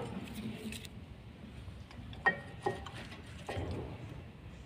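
Metal brake parts clinking at a front disc brake caliper as the pads are handled: two sharp clinks about two seconds in, the first ringing briefly, then a duller knock.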